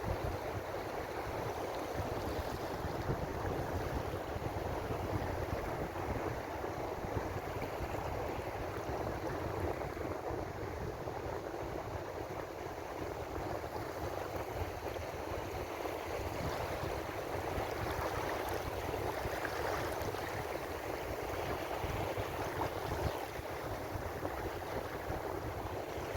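Ocean waves washing ashore, a steady hiss of surf.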